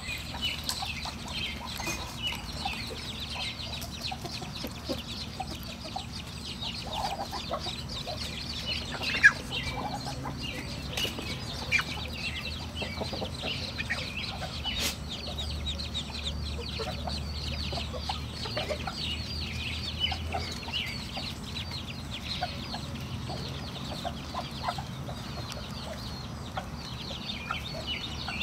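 A brood of ducklings peeping continuously, many short high calls overlapping. There is one sharp knock about nine seconds in.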